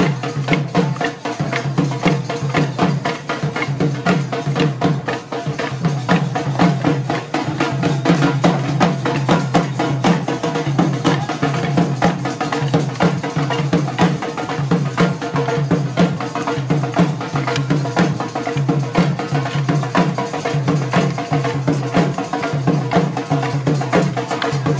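Live Bundeli folk drumming accompanying a Diwari (Moniya) dance: drums beaten in a fast, unbroken rhythm with sharp wooden clacks among the strikes, and a steady held tone over the top.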